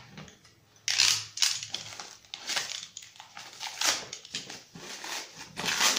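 Plastic packaging wrap crinkling and rustling in irregular bursts as it is pulled and torn open by hand. The loudest bursts come about a second in and at the end.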